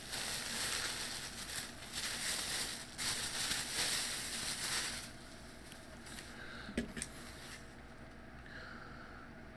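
Plastic packaging crinkling and rustling as it is handled for about five seconds, then quieter, with two sharp clicks about seven seconds in.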